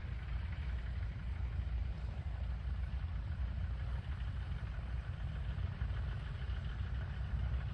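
Steady drone of a Fokker D.VII replica's engine, a 200 hp Ranger 6-440 inverted inline six, with heavy low rumble.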